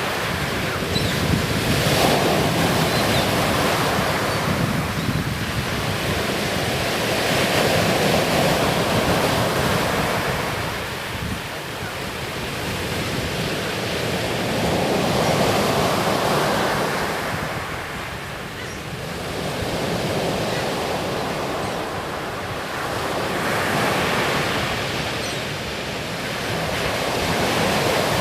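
Black Sea waves breaking on the beach, the surf swelling and fading every few seconds, with wind buffeting the microphone.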